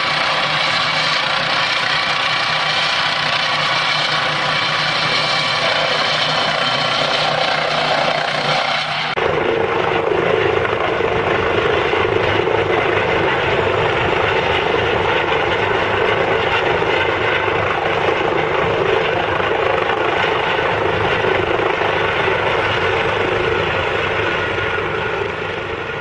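Eurocopter EC130 helicopter hovering close by, its turbine engine and rotors running steadily. The sound shifts abruptly about nine seconds in to a fuller, lower rotor noise, and fades near the end as the helicopter settles toward the pad.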